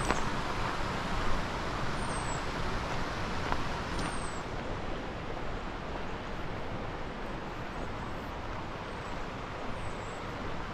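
Steady rushing outdoor noise with a few short, high, falling bird calls, spaced a couple of seconds apart.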